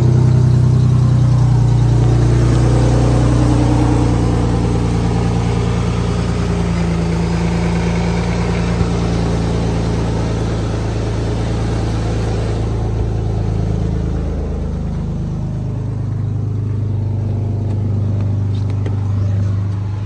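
Chrysler 300's 3.5-litre V6 idling steadily on fresh spark plugs, no longer misfiring, with a bit of an exhaust leak.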